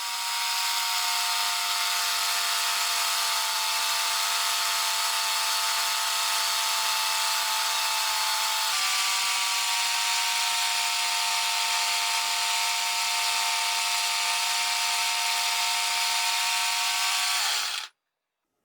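An electric power tool working wood, its motor whining steadily with a strong hiss, shifting slightly in pitch about nine seconds in and switched off near the end.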